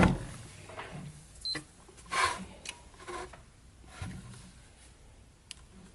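Scattered light clicks, taps and brief scrapes of small parts and tools being handled, with a sharp knock right at the start.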